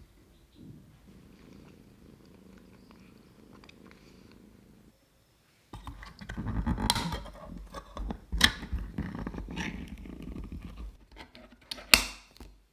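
Ring-pull lid of a tin can being pried up and peeled back: a rough, grating rasp broken by sharp metallic clicks, with the loudest click near the end. A faint low rumble comes before it, under a short silent gap.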